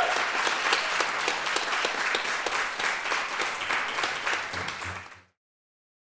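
Audience applauding, a dense patter of many hands clapping that fades out and stops about five seconds in.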